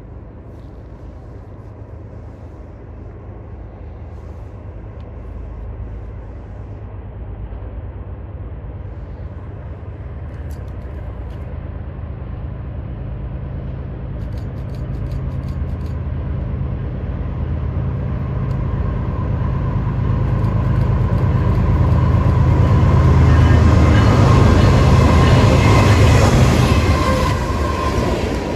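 Diesel train approaching and passing, its locomotive's engine growing steadily louder for about twenty seconds and loudest near the end as it comes by.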